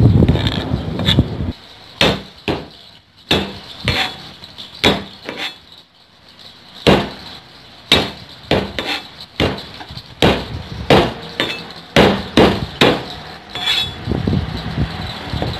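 Chinese cleaver striking a plastic cutting board as garlic cloves are chopped and smashed: separate sharp knocks, irregular, about one to two a second, with a brief pause near the middle. A low rumbling noise fills the first second and a half.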